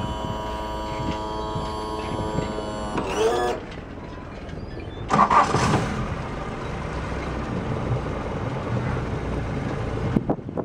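A steady electric buzz that falls away about three seconds in. About five seconds in comes a sudden loud burst as the Yanmar FX24's inboard engine is cranked and catches, and the engine then keeps running steadily.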